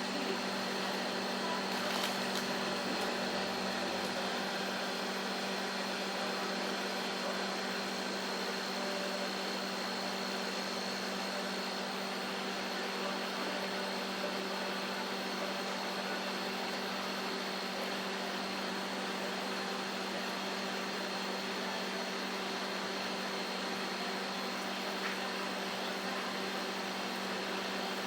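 Microwave oven running, a steady hum with fan noise.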